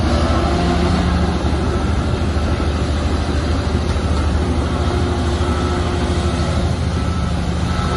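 Diesel engine of a Shantui bulldozer running steadily at working revs: a loud, continuous low drone that holds even throughout.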